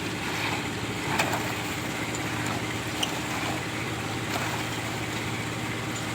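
A machine engine running steadily on a concrete-pouring site, with a few short metallic knocks over it.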